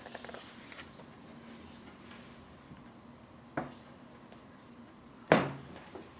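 Closed Microsoft Surface Laptop 3 handled and set down on a tabletop: a few faint clicks, a light knock about three and a half seconds in, and a louder knock near the end.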